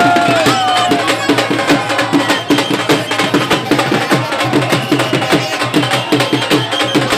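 Loud music with fast, steady drumming. A held high note dips and ends about a second in.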